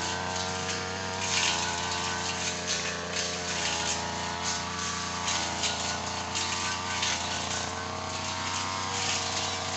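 Small petrol engine of a Tanika 438 machine running steadily under load, its pitch wavering a little, with irregular brief rasps over it.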